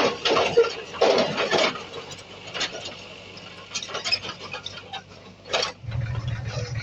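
Sharp clanks and knocks, several in the first two seconds and a few more scattered after, then near the end a heavy machine's diesel engine starts up and runs with a low, even rumble.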